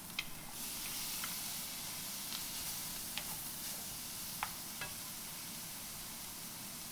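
Food stir-frying in hot oil in a pan: a steady sizzling hiss with a few short clinks scattered through it.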